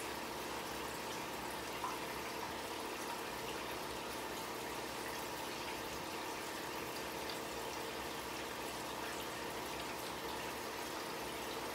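Steady trickle of circulating water in a fish tank, with a faint steady hum underneath.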